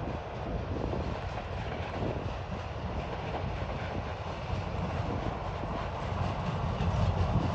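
TasRail DQ-class diesel-electric locomotive hauling a train of hopper wagons, its engine running with a steady low rumble that grows louder near the end as the train approaches.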